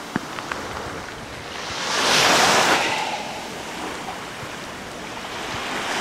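Small waves on a calm sea breaking and washing up the beach, one wash swelling and fading about two seconds in.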